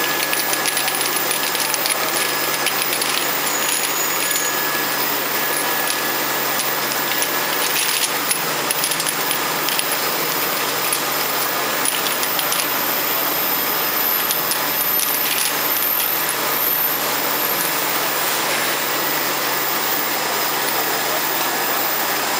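Small glass vials clinking against each other and the steel guide rails on the rotary feed turntable of a vial washing machine, a dense patter of light clicks over the machine's steady running noise.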